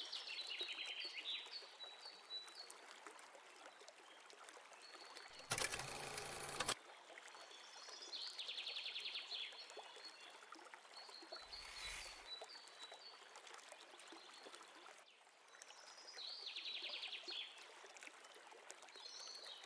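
Birdsong, a trilling phrase that comes back about every eight seconds, over a steady hiss of running water. About six seconds in, a loud burst of noise lasts about a second and is the loudest sound, with a fainter burst near twelve seconds.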